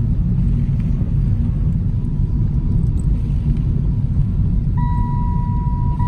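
Steady low rumble of a car driving, heard from inside the cabin. A steady high electronic tone starts near the end.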